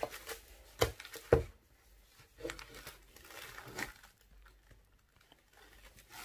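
Handling sounds of a camera and its memory card: a few sharp clicks in the first second and a half, the loudest about a second and a half in, then softer rustling and light taps.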